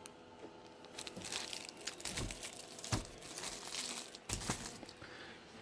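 Wrapped firecracker packs being handled and turned over: irregular crinkling of the wrapping, with a few soft knocks.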